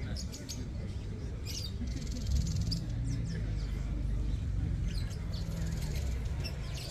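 Small birds chirping now and then, with a short buzzy trill about two seconds in, over a steady low rumble.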